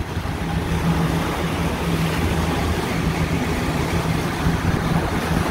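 Outboard motor running steadily with the boat under way, a constant low hum under the rush of the churning wake and wind on the microphone.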